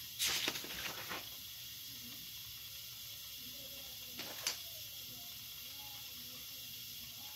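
Paper rustling as the pages of a spiral sketchbook are handled: a cluster of short crinkles in the first second, then a brief rustle ending in a sharp click about four seconds in, over a steady background hiss.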